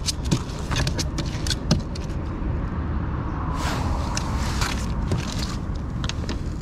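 A freshly caught bream flapping and slapping on a plastic kayak deck: a string of irregular taps and knocks, busiest around the middle, over a steady low rumble.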